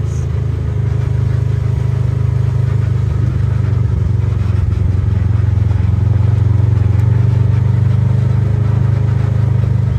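Side-by-side UTV engine running steadily as it drives along, a low drone that gets a little louder after the middle.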